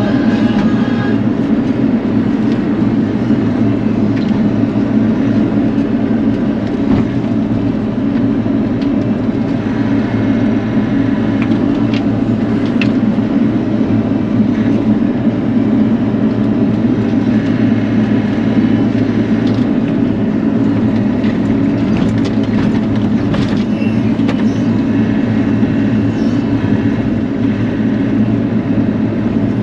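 Bobcat E42 mini excavator's diesel engine running steadily under working load, with a few sharp knocks or cracks partway through.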